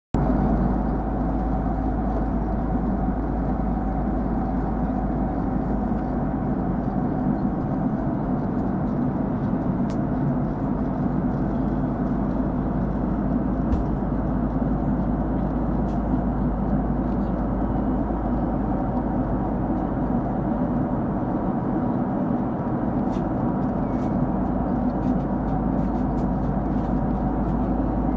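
Steady cabin drone of a Boeing 767-300ER in cruise: engine and airflow noise heard from inside the passenger cabin, even throughout.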